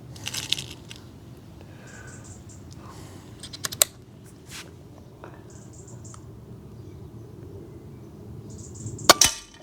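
SMK Snowpeak PP750L .22 PCP air pistol being reloaded and fired: a few mechanical clicks of the side-lever action, then a single sharp shot about nine seconds in.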